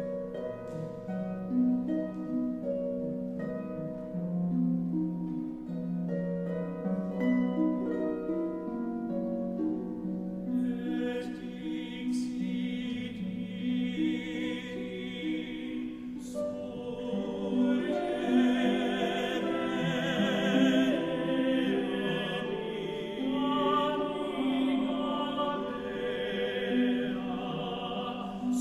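Sacred music: an instrument plays a slow melody, and about ten seconds in a solo singing voice with vibrato joins it.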